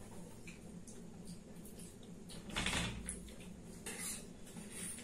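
A metal spoon tapping and scraping in a small steel bowl, a few light clinks and one longer scrape about halfway through, over a faint steady low hum.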